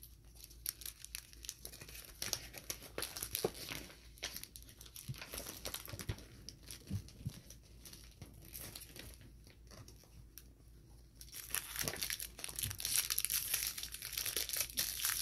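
Crinkly foil wrapper of a small blind-bag toy package being torn open and crumpled, in many short crackling rustles that get busier and louder near the end.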